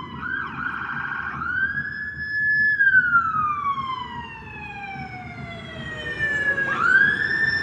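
Police siren wailing: a short fluttering tone rises to a high pitch, holds, then slides slowly down for about four seconds before climbing back up near the end. A low rumble runs underneath.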